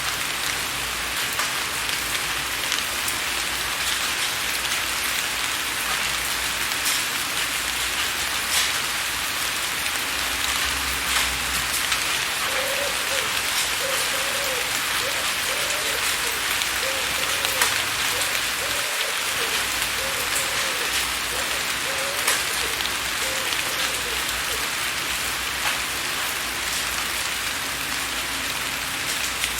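Steady rain falling on a window pane, with scattered sharper drops ticking against the glass. Through the middle, a faint low sound repeats about once a second for roughly twelve seconds.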